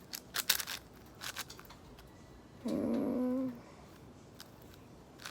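A few clicks of a 6x6 speed cube's layers being turned early on, then a single voice-like call about a second long near the middle, the loudest sound here.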